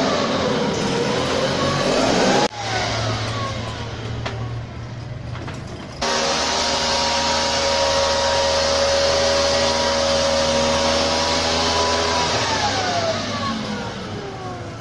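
Small two-stroke engine of a backpack motorized mist-blower sprayer running with a blowing hiss. Its pitch dips and climbs in the first seconds, holds steady for several seconds, then slides down near the end as the throttle is eased off. The sound cuts abruptly twice.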